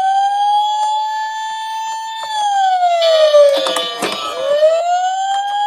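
Toy emergency vehicle's electronic siren wailing, its pitch sliding slowly up, down and up again. A light plastic clatter of toy cars comes partway through.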